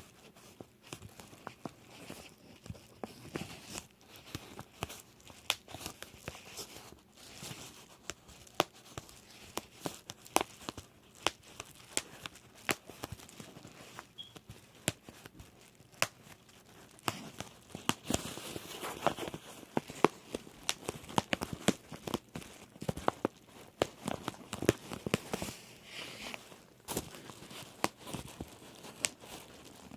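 Bubble wrap being popped by hand: sharp, irregular pops, several a second, over the crinkling of the plastic sheet, thicker and faster for a stretch past the middle.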